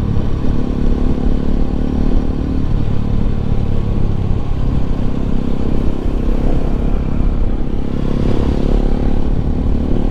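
Bajaj Pulsar RS 200's fuel-injected single-cylinder engine running steadily under way in top gear, with a slight swell in engine note about eight seconds in.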